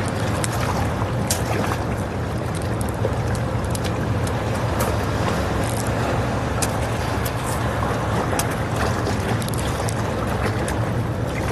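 Strong wind buffeting the microphone over the steady noise of breaking waves, with scattered small clicks and knocks throughout.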